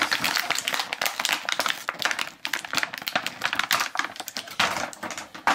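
Clear plastic packaging tray crackling and crinkling under the hands as an action figure is worked free of it, with a sharper snap near the end.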